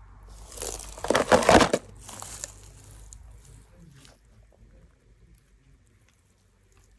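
A hand breaking apart damp moulded coloured play sand: a loud burst of crunching and crumbling about a second in, then softer, scattered crumbles that die away.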